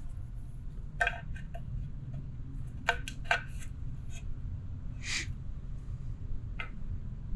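Scattered light metallic clicks and clinks of tools and engine parts being handled, with a brief scrape about five seconds in, over a steady low hum.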